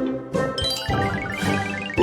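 Cartoon background music with a quick rising run of tinkling, chime-like notes.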